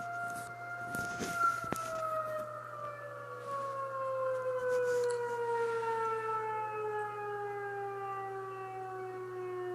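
Tornado warning siren winding down: its tone holds steady for about a second and a half, then slowly falls in pitch.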